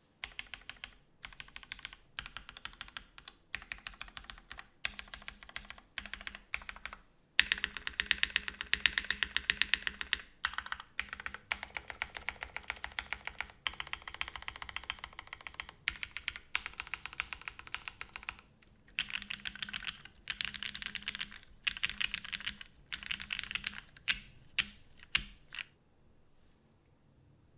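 Custom mechanical keyboard with an aluminium plate, lubed Cherry vintage black linear switches and GMK keycaps, typed on in fast bursts with short pauses. The typing thins to a few single keystrokes and stops near the end.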